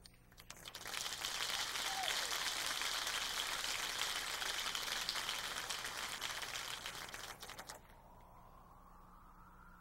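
Theatre audience applauding: a dense patter of many hands clapping that starts about a second in and stops abruptly near the end.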